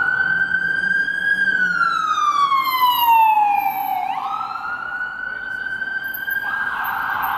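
Ambulance siren on a wail cycle. It rises and holds high, falls slowly over about two and a half seconds, then climbs again about four seconds in, over city traffic noise.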